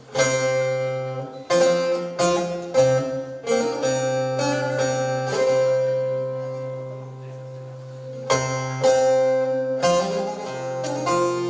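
Bağlama (long-necked Turkish saz) played solo: a hard opening strike, then a run of plucked notes over a steady ringing drone, a quieter held stretch in the middle, and a new phrase starting about eight seconds in.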